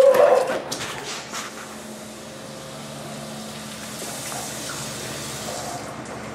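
Kitchen tap running water into a sink: a steady rush of water that grows brighter for a couple of seconds before the end. A brief vocal sound comes at the very start.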